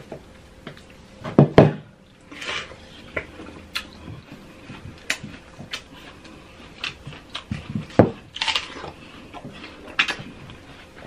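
Close-miked eating sounds: a metal fork clinking and scraping against a glass bowl of whipped cream, with wet bites and chewing of juicy fruit. Scattered sharp clicks and knocks, the loudest about one and a half seconds in, and short bursts of wet biting about two and a half and eight and a half seconds in.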